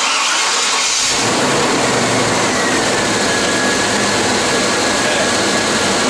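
1995 Chevy Tahoe's 5.7-litre (350) small-block V8 starting, catching about a second in and then running steadily, with the new oil pressure switch and fuel pump relay in place.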